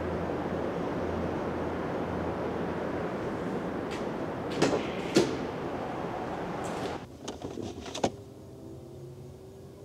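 An SUV door being opened, with two sharp latch clicks about halfway through, over a steady background hiss. Near the end the hiss drops away and one sharp thump follows as the door shuts.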